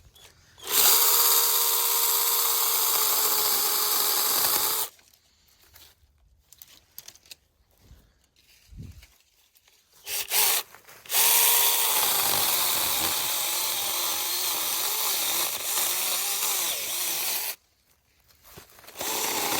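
Mini chainsaw cutting branches in bursts: a steady motor whine with chain rasp for about four seconds, a brief blip, then about six seconds more, starting up again at the very end.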